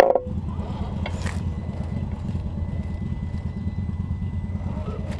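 Axial SCX10 II RC crawler driving over grass and dry leaves, under a steady low rumble. There is a sharp knock right at the start and a brief rustle about a second in.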